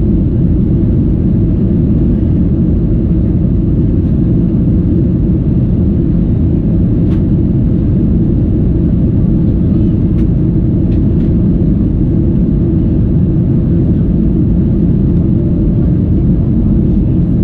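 Steady low roar inside the cabin of a Boeing 737-800 in flight after takeoff: its CFM56 engines and the airflow over the fuselage, with a few faint clicks.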